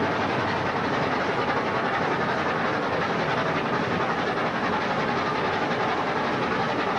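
Train of replica vintage railway carriages running through a tunnel: a steady rush of wheel and rail noise, echoing off the tunnel walls.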